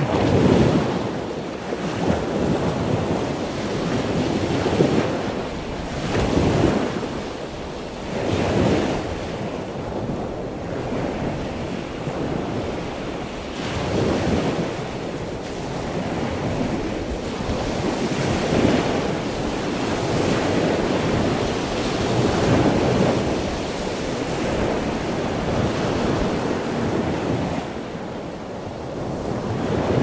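Small lagoon waves washing and breaking against dark shoreline rocks, swelling and easing every few seconds, with wind buffeting the microphone.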